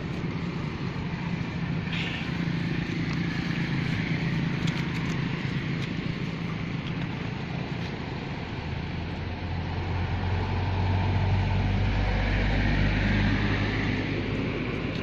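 A low, steady motor hum, swelling louder from about nine seconds in and easing again near the end.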